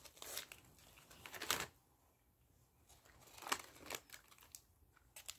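Crinkling and rustling of packaging being handled close by, with two louder crinkles, about a second and a half in and again near three and a half seconds.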